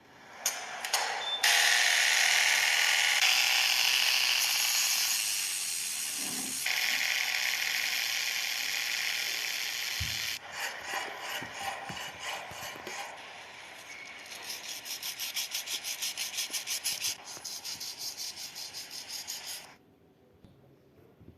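Sanding on a repaired metal car part: a long continuous stretch of abrasive sanding noise, followed by quick, repeated rasping strokes that stop near the end.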